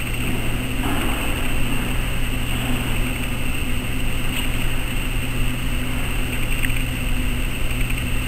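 Steady low hum with an even hiss over it, like ventilation or recorder noise, with no distinct events.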